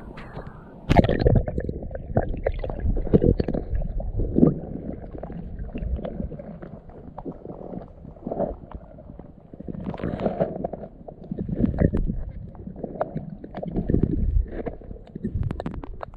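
Water sloshing and splashing around legs wading through river shallows, with heavy low rumble and scattered knocks and clicks, coming and going in surges.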